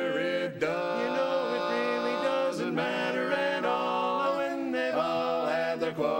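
Male barbershop quartet singing a cappella in close four-part harmony, holding chords that change every second or two.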